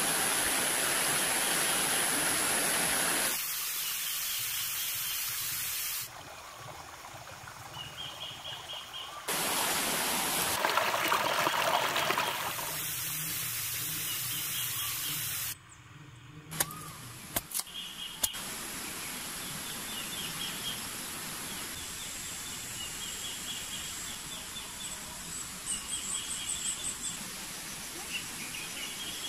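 Rushing stream water for the first few seconds, then a run of short cuts of outdoor ambience with birds chirping in short repeated phrases. A few sharp clicks come just past the middle.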